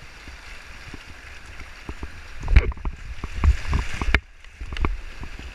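Creek water rushing and splashing around river tubes going through a shallow rapid, with scattered knocks and low thumps; the loudest knock comes about two and a half seconds in.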